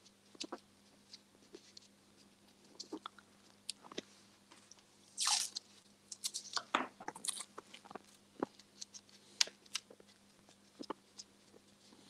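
Masking tape pulled off the roll and torn, with scattered small crackles and clicks as tape and wire are handled. There is a short rip about five seconds in and another a couple of seconds later.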